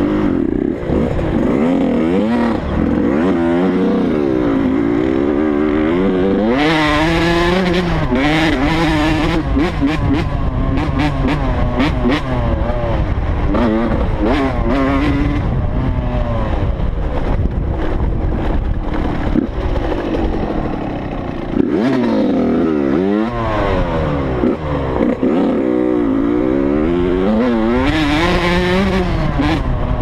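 Dirt bike engine revving hard and easing off over and over as it is ridden across dirt mounds, its pitch climbing and dropping every second or two, heard from a helmet-mounted camera.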